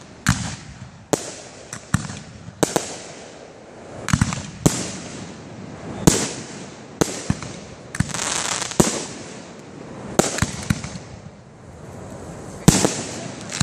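Aerial firework shells bursting one after another, about a dozen sharp bangs roughly a second apart, with hissing between them.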